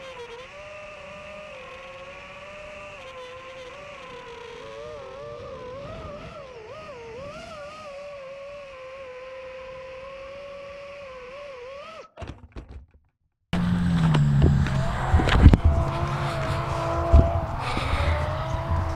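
Racing FPV quadcopter's motors and propellers whining, the pitch rising and falling as the throttle changes. After a short cutout, a louder stretch follows with a low hum and sharp knocks close to the microphone.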